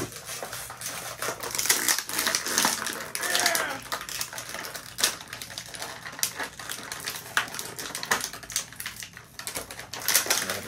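Clear plastic packaging crinkling and crackling with many quick irregular clicks as an action figure and its parts are worked out of a plastic bag.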